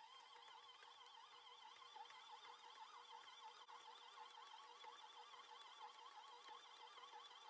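Near silence, with a faint high tone that wavers up and down in pitch several times a second.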